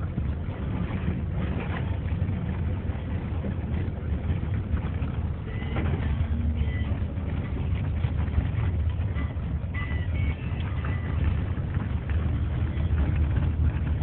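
Car driving on a rough dirt road, heard from inside: a steady low engine and road rumble with frequent small knocks and rattles.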